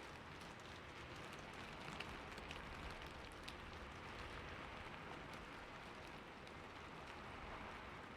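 Steady rain falling, an even hiss with scattered individual drops tapping on a surface.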